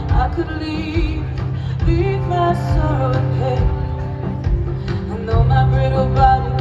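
Live band music with singing over a steady bass line and a drum beat.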